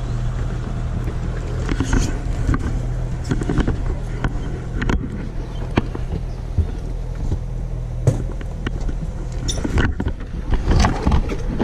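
Small fishing boat's engine running slowly with a steady low hum while it comes alongside, with scattered knocks and clatter of gear on the deck.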